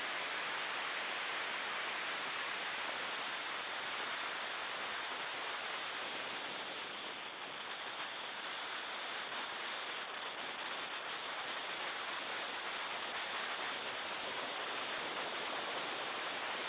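In-cabin noise of a BMW E36 M3 race car at speed: a steady rushing hiss with no clear engine note, easing slightly about seven seconds in.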